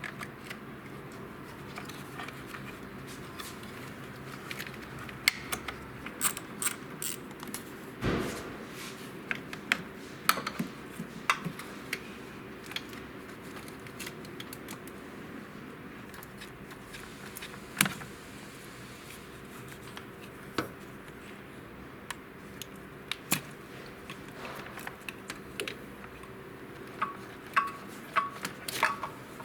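Hand tools working on a car's front end: scattered metallic clicks and clinks, with a quick run of ticks near the end, over a faint steady hum.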